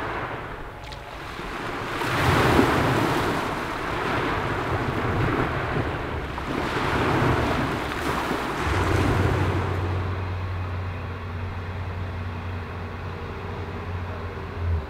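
Sea surf washing onto a beach, rising and falling in slow surges every few seconds. From about the middle a steady low hum comes in and the surf grows softer.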